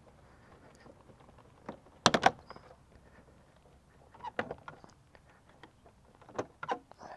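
A few sharp clicks and clacks from hand tools and the scooter's plastic body panels being handled while panel screws are taken out. The loudest is a quick cluster of about three about two seconds in, with more around four and a half seconds and near the end.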